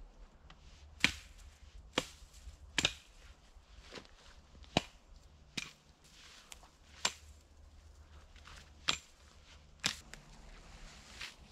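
Axe chopping wood: about ten sharp strikes, roughly one a second and unevenly spaced.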